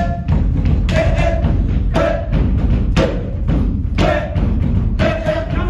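Loud beat-driven music with heavy, continuous bass and a hard beat about once a second, with pitched sounds in between.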